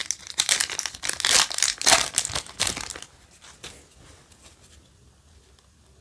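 Foil Yu-Gi-Oh! booster pack being torn open and crinkled, a dense run of crackling for about three seconds, then only faint soft handling sounds as the cards come out.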